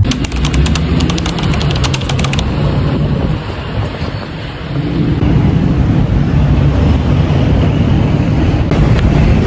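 Street traffic rumbling along with wind buffeting a phone microphone while walking outdoors. A rapid run of light clicks sounds over the first couple of seconds.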